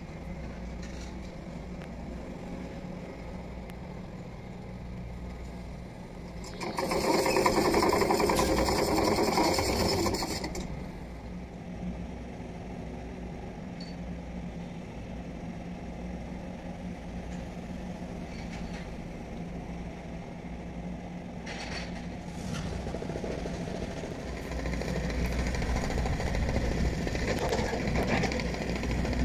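Engine of heavy construction machinery running steadily with a low hum. About seven seconds in, a loud burst of noise lasts roughly three and a half seconds. The engine grows louder over the last few seconds.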